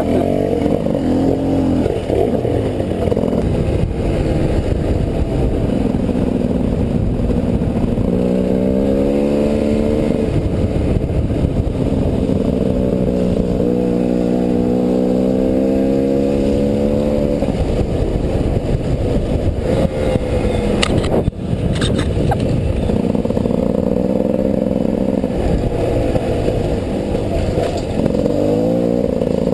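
300cc two-stroke enduro motorcycle engine being ridden off-road, revving up and falling back over and over as the throttle is worked. A few sharp knocks and clatter come about two-thirds of the way through, where the engine briefly drops off.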